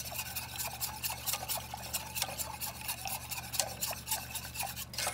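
Wire whisk scraping and clicking rapidly against the sides and bottom of a stainless steel saucepan as it stirs a thick butter-and-cream sauce.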